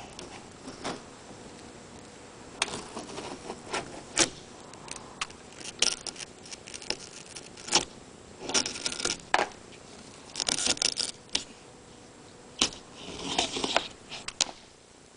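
Windshield pull knife being worked through the glue bead under the glass: irregular clicks and knocks with a few short scraping runs.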